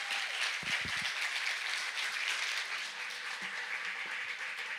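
Audience applauding steadily, with a couple of low thuds about a second in.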